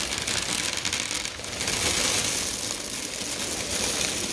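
Dry Cheerios cereal poured in a stream onto a sheet of paper, a dense, continuous rattle of many small pieces landing and piling up.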